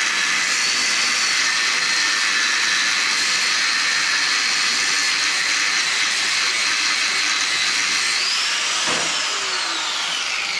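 Angle grinder running at speed, a steady high whine over a loud hiss, then switched off about eight seconds in and spinning down, the whine sliding down in pitch.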